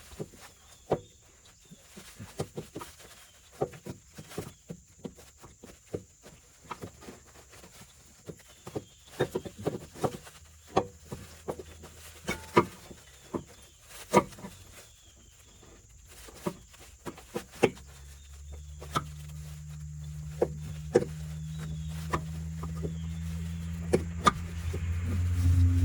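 Irregular clicks and knocks of hand tools and metal parts as a power steering pump is worked loose and lifted out of the engine bay. From about two-thirds of the way in, a low steady hum rises gradually.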